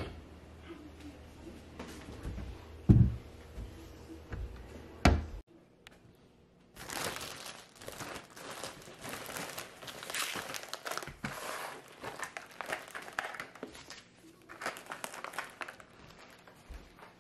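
Two loud knocks in the first five seconds as things are moved about, then plastic food bags crinkling in quick irregular bursts as they are handled and set down on the counter.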